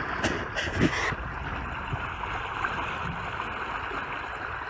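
Steady rush of water along the hull of a moving sailboat.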